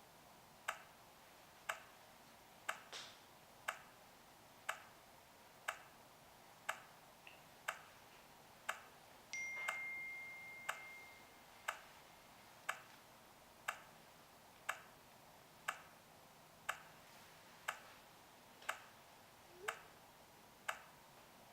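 Quiet ticks at an even pace of one a second, with a single steady high beep of about a second and a half about nine seconds in.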